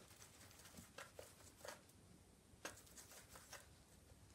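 Near silence with a handful of faint, scattered clicks and taps of a paintbrush working paint in a watercolour palette.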